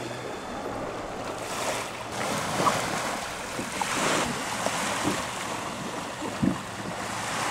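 Small waves washing onto a sandy beach, the surf rising and falling.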